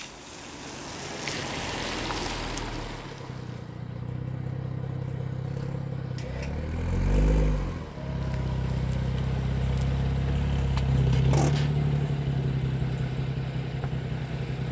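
BMW 335's turbocharged N55 straight-six with a loud aftermarket exhaust idling with a steady burble. About seven seconds in, one throttle blip rises and falls and is the loudest moment, and a short sharp crack comes later.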